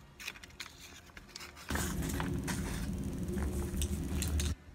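Hands handling a foil-lined paper wrapper and pulling apart a flaky patty crust: scattered crinkles and crackles. About two seconds in comes a much louder stretch of dense rustling and rumbling handling noise, which cuts off suddenly shortly before the end.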